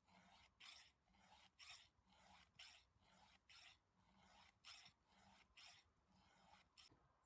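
A file being drawn across a chainsaw chain to sharpen it: rasping strokes, about one a second.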